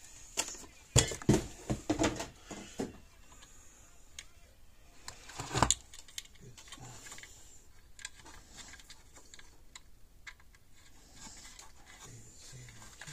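Clicks and knocks of wire and tools being handled on a workbench, busiest in the first few seconds and again about five and a half seconds in, then only faint scattered ticks.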